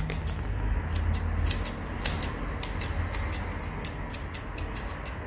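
Curved grooming scissors snipping the fur on a dog's muzzle: quick, sharp snips, several a second.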